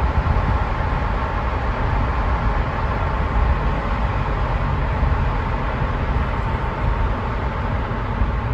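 A car driving through a road tunnel, heard from inside the cabin: a steady low rumble of tyres and engine, with a faint steady hum above it.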